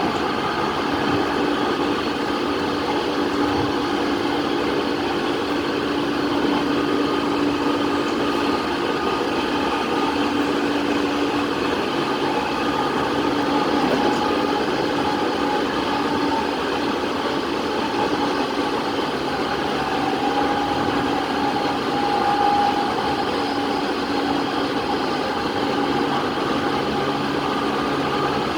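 E217 series electric commuter train running at speed: steady rolling and motor noise with a continuous low hum and a fainter higher whine.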